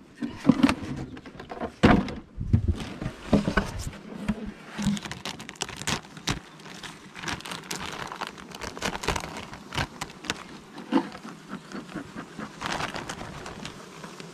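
Beehive being handled: irregular knocks and clicks of wooden hive parts and a hive tool, with a few heavier thumps in the first few seconds, and crackling rustle of a plastic cover sheet being peeled off the top of the frames.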